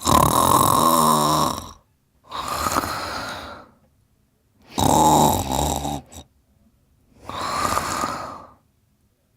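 Heavy snoring from a sleeper: two loud, rattling snores, each followed by a softer, breathy breath, in a slow regular rhythm.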